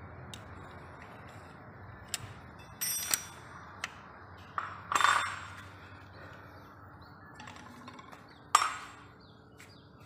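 Scattered metallic clinks and knocks from tools and parts being handled on a Mazda LF cylinder head, a few of them ringing briefly. The loudest comes about five seconds in, with a sharp one near the end.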